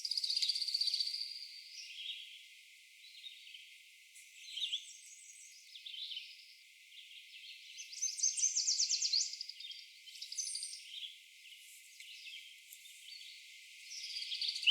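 Brown-headed cowbirds calling and singing, with a yellow warbler's song among them: a held high whistle at the start, scattered chirps, and rapid chattering series about four and eight seconds in. Everything below the birds' pitch is filtered out.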